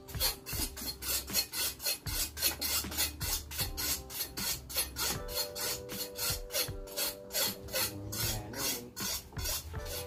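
Metal ladle scraping around the inside of a large aluminium cooking pot as it is stirred, a rhythmic rasp of about four strokes a second.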